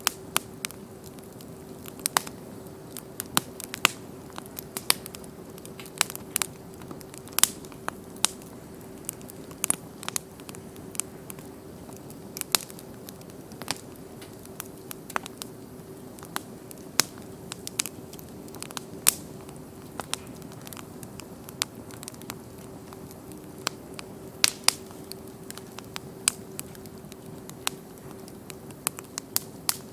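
Bonfire crackling: irregular sharp pops and snaps, several a second, over a steady soft hiss, with a faint steady hum underneath.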